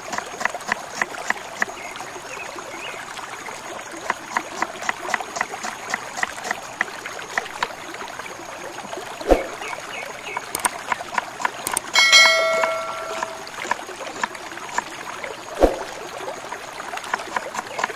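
Kitchen knife chopping a red onion on a wooden log, the blade tapping the wood about three times a second. Two louder knocks, and about two-thirds of the way through a brief metallic ring.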